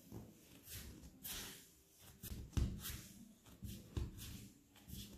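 Hands rounding a ball of bread dough on a floured steel worktop: soft, uneven rubbing and brushing with dull bumps as the dough is turned and tucked under. This is the final shaping of the loaf.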